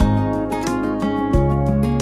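Background music: strummed acoustic guitar over a bass line that changes note about every second and a third.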